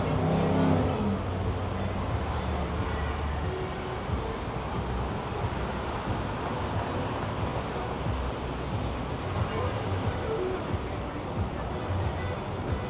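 Steady city street traffic noise, a little louder in the first second.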